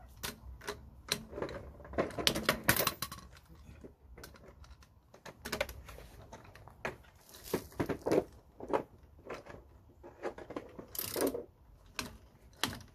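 Ratchet wrench clicking in irregular bursts as wheel nuts are run in on an alloy wheel, with sharp metallic clicks and clinks from the socket and nuts.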